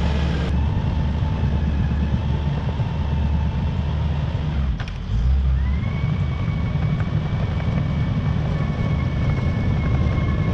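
Caterpillar D5 wide-track bulldozer's diesel engine running in a steady, loud low drone. About halfway through there is a brief dip, and then a higher whine slides up and holds.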